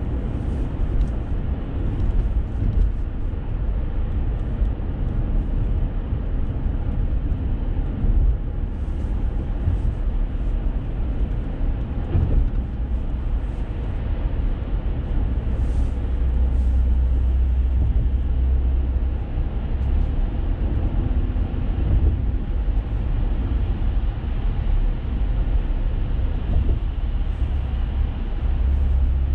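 Steady low road rumble and tyre noise of a moving car, heard from inside the cabin, a little stronger in the bass around the middle of the stretch.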